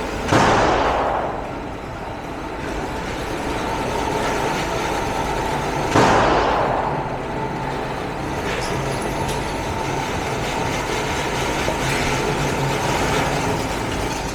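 Two 9 mm Glock pistol shots about six seconds apart, each a sharp crack that dies away over about a second of echo, over a steady background rumble.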